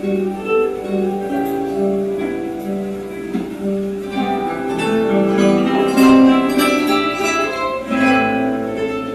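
Guitar quartet playing: plucked acoustic guitars with a pulsing low note under a melody, the texture growing fuller and louder partway through.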